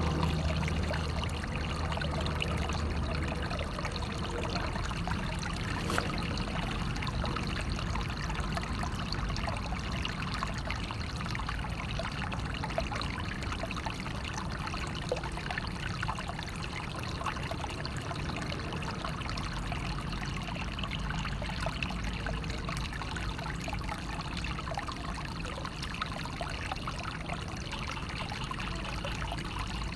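Naturally flowing water running and trickling steadily, with many small splashes and drips throughout.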